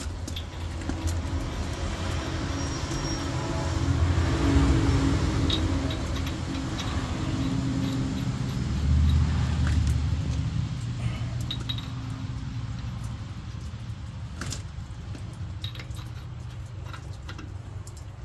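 An engine running, growing louder twice and then slowly fading, with scattered light clicks.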